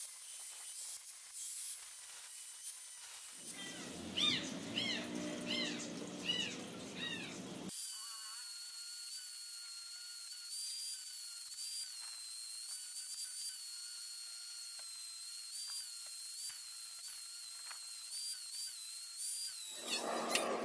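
Handheld angle grinder with an abrasive disc running against a rusty steel blade, a steady high-pitched whine. From about three to eight seconds in the sound turns lower and rougher, with tones that rise and fall every half second or so. Near the end a louder, rougher grinding noise comes in.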